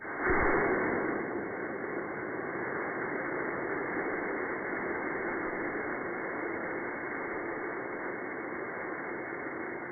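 Rocks rolling down a toy barrel slide: a steady rushing noise that starts suddenly, is loudest in the first second, then holds level.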